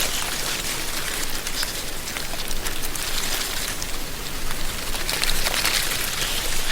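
Wind blowing through a tree canopy, dry autumn leaves rustling with a dense crackle, swelling in a gust at the start and again about five seconds in.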